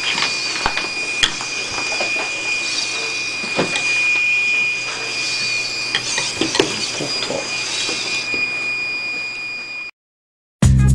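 Small biped robot's servo motors whining steadily as it walks, with scattered clicks and taps as its feet and joints move on the tabletop. The sound cuts off suddenly near the end.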